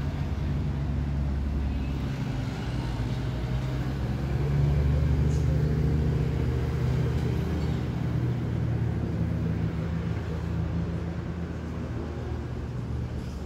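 Steady low drone of running engine-driven machinery, swelling slightly for a few seconds midway.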